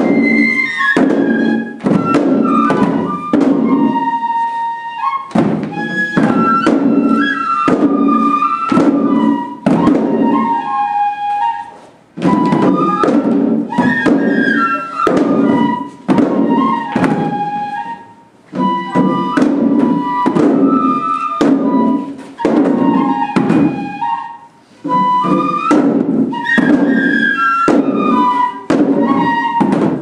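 Higan shishimai lion-dance music: a Japanese bamboo flute playing a repeating melody while the dancers strike the small drums at their waists in a steady beat. The music runs in phrases with brief breaks about every six seconds.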